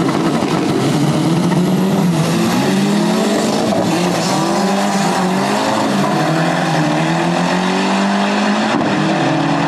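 Two drag-racing cars accelerating hard side by side down the strip, engines at full throttle with their pitch climbing and dropping at each gear change.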